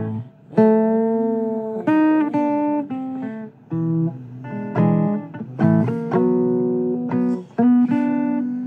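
Acoustic guitar playing blues: single notes and chords plucked every half second or so and left to ring, with a few sliding notes.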